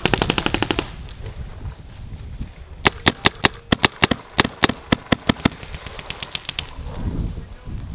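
Electronic paintball marker firing: a rapid burst of about a dozen shots in under a second, then a looser string of single shots for about two and a half seconds from roughly three seconds in, trailing off into fainter shots.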